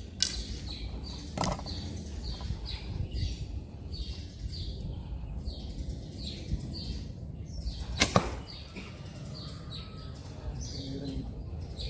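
An arrow loosed from an orange recurve bow about eight seconds in: one sharp snap of the bowstring, the loudest sound here, with two lighter clicks in the first second and a half. Behind it, a bird chirping repeatedly, short high falling notes about two a second.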